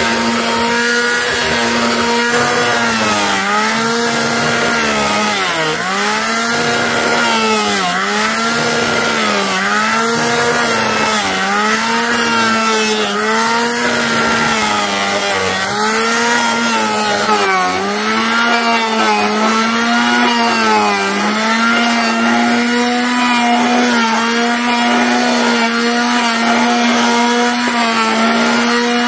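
Chainsaw running at high revs. For most of the time its pitch dips about once a second as it bogs under load and recovers, as when cutting wood. In the last several seconds it holds a steady pitch.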